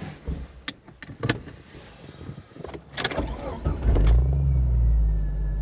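A few sharp clicks and knocks, then a vehicle's engine comes in about three seconds in and runs with a steady low hum.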